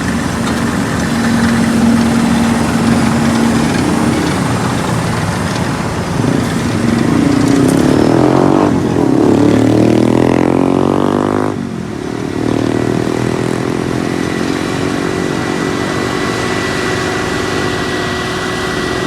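Engines running steadily. One engine revs up, rising in pitch over about four seconds, then drops back abruptly a little past the middle.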